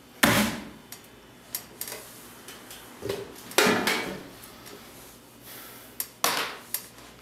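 A series of knocks and thuds on a tabletop as a hand comes down and moves on it: a sharp one just after the start, a few light taps a second or two later, and louder thumps about three and a half and six seconds in.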